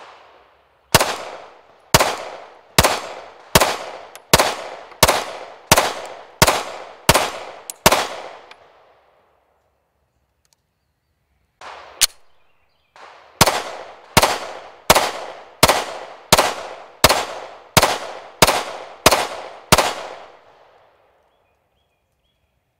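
Pistol shots from a 9mm SIG Sauer M18, fired at a steady pace of about one and a half shots a second, each shot with a short echoing tail. A string of about ten shots comes first, then a pause broken by a single shot, then a second string of about eleven shots.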